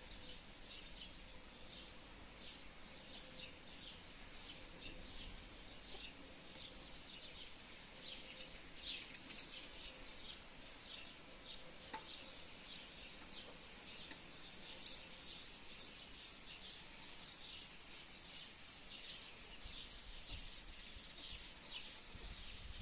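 Faint bird chirping: short, high chirps repeating a few times a second, over light outdoor hiss.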